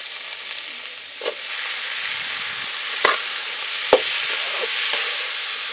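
Chopped brinjal (aubergine) sizzling in hot oil in a metal kadai as it is stirred, the sizzle growing louder about a second and a half in. A perforated steel spatula clinks against the pan three times.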